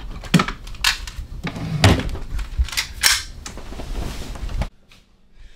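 Sharp clicks and knocks of a nightstand drawer being opened and a handgun being taken out and handled, several separate strikes. The sound cuts off suddenly near the end.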